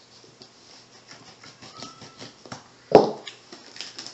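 Knife slitting and pulling packing tape on a cardboard box: scattered crackles and clicks of tape and cardboard, with one loud sharp crack about three seconds in.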